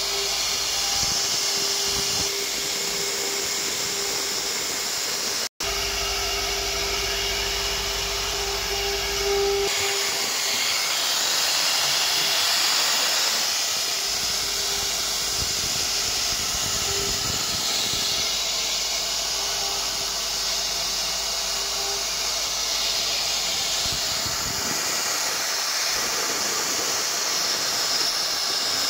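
CNC router spindle running at high speed while its bit carves a green-painted wood board: a steady high whine and hiss of the cut. The sound drops out for an instant about five seconds in.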